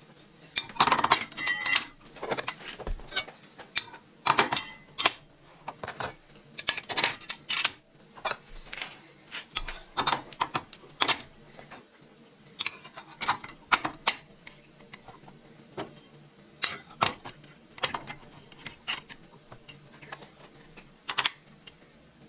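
Steel blades and chippers of a Freud stacked dado set being handled and fitted onto a table saw arbor: irregular metallic clinks and clicks, several a second at times, with short pauses between.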